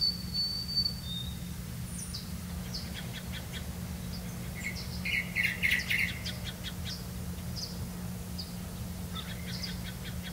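Small birds chirping and twittering in short, quick notes, with a clear whistled note in the first second and the busiest chirping about halfway through, over a steady low hum.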